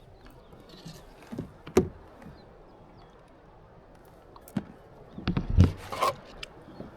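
Handling noise aboard a fishing kayak during a fight with a fish: a sharp knock a little under two seconds in, then a quick cluster of knocks and rubbing against the hull about five to six seconds in.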